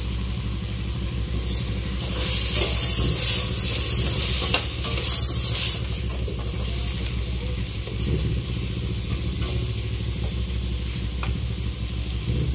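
Chicken pieces sizzling in a pan in fish sauce over a low flame, the sizzle louder for a few seconds from about two seconds in, with a few light clicks and a steady low hum underneath.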